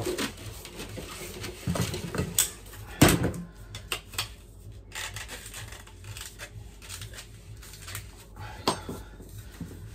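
Clicks and clinks of tools and plastic parts being handled, with a few sharp knocks, the loudest about three seconds in.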